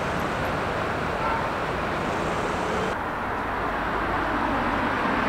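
City street ambience of road traffic, a steady noise that changes abruptly about three seconds in.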